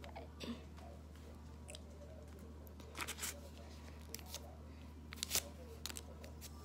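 Small clicks and rustles of hands handling a plastic blood glucose meter and test-strip vial, the sharpest clicks about three seconds in and again past five seconds, over a steady low hum.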